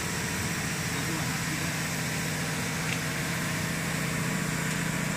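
Glue-spraying composite machine for non-woven cotton running, its rollers and web feed giving a steady mechanical hum with a low drone.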